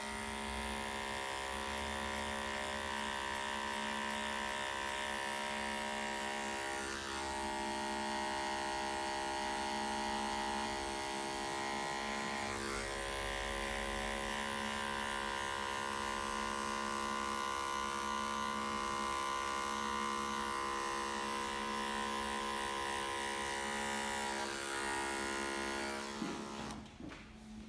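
Cordless electric hair clipper running with a steady buzz as it blends a fade on the back of the neck; it stops near the end.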